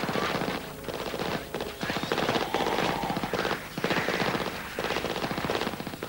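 Automatic gunfire: several long bursts of rapid shots, one after another with short breaks between them.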